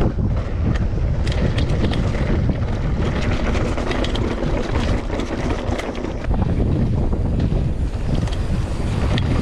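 Wind buffeting the microphone as a steady low rumble, with scattered clicks and rattles over it.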